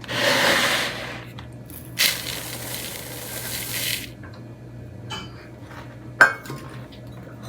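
Rolled oats pouring from a bag into a measuring cup, a rushing hiss in two runs, the first about a second long and the second about two seconds, followed by one sharp clink a little after six seconds.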